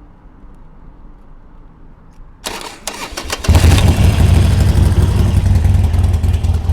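Starter motor of a 2007 Harley-Davidson Sportster Nightster 1200 cranking, switched on by bridging the starter relay's contacts with a metal key to get around a bad relay. About two and a half seconds in it cranks briefly, and a second later the fuel-injected V-twin catches and runs loud and steady.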